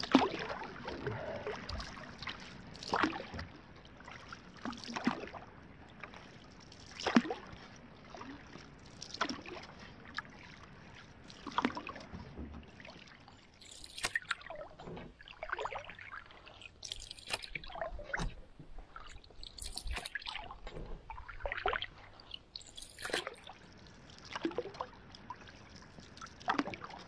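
Canoe paddle strokes in calm lake water: a soft splash and swirl as the blade dips and pulls roughly every two seconds, with water trickling off the paddle between strokes.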